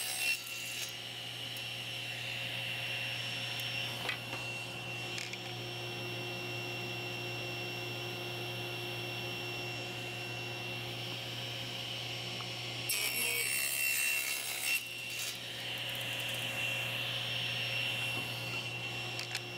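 Table saw running steadily while ripping thin strips of exotic hardwood for inlay: one cut ends about a second in, and a second cut through the blade lasts about two seconds near two-thirds of the way through.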